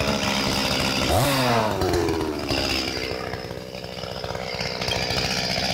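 Petrol chainsaw's two-stroke engine running at idle, with one short rev of the throttle about a second in.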